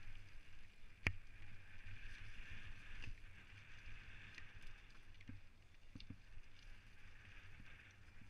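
Specialized Stumpjumper mountain bike rolling down a wet, stony trail: steady tyre and drivetrain noise with small rattles and clicks, and one sharp knock about a second in.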